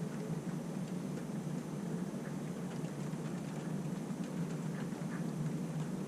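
Steady rain falling during a thunderstorm, with faint scattered ticks of drops.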